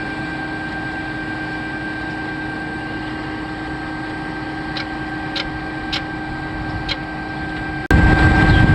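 Concrete boom pump truck's diesel engine and hydraulics running with a steady, even hum. A few light ticks come in the second half, and about 8 seconds in the sound jumps suddenly to a much louder rushing noise.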